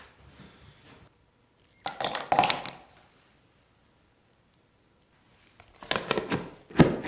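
Two short bursts of small hard clinks and knocks, like metal parts being handled and set down on a bench: one about two seconds in, the other near the end.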